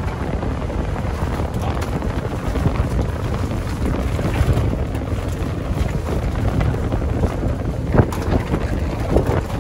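Wind buffeting the microphone on an open boat deck. Scattered knocks and clatter come from red king crabs being shaken out of a pot onto the wet wooden deck, with one sharper knock about eight seconds in.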